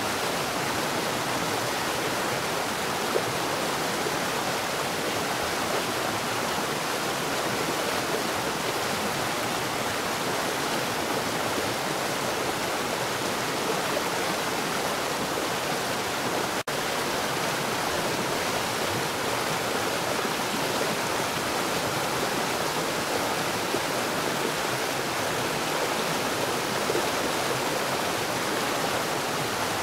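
Water falling rapidly underground: a steady, even rush of falling water, with a momentary dropout a little past halfway.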